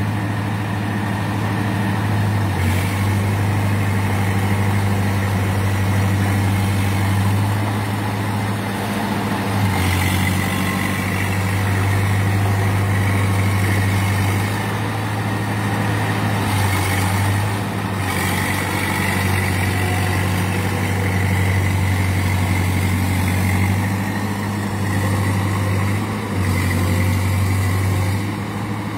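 Small crawler bulldozer's diesel engine running steadily, its note shifting a few times as the machine works the dirt with its blade.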